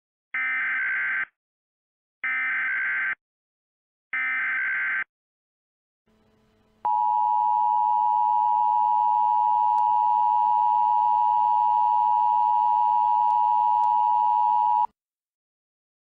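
Emergency Alert System tones: three short bursts of digital SAME header data, each under a second and about a second apart. About seven seconds in they are followed by the steady EAS two-tone attention signal (853 and 960 Hz together), held for about eight seconds over a faint hiss before it cuts off.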